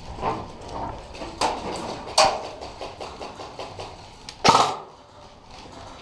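Sharp cracks and knocks in a small corrugated-metal room, the loudest a short crack about four and a half seconds in that fits a shot from an electric airsoft rifle.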